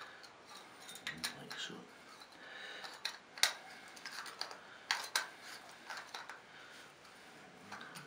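Scattered light clicks and taps of the brass Mira 915B temperature cartridge parts being handled and screwed together by hand, the headwork going onto the cartridge body on its left-hand thread.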